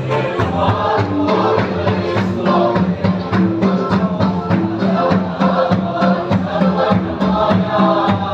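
A group singing together to a steady drum beat, like congregational hymn singing at a worship service.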